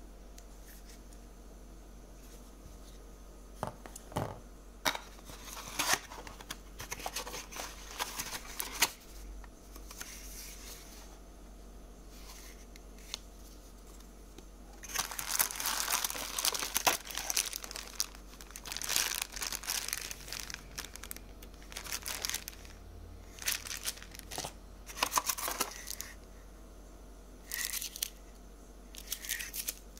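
Hands rustling and crinkling plastic wrapping and handling cardboard packaging, in irregular bursts with quiet gaps between, with a few sharp clicks among them; the busiest stretch is about halfway through.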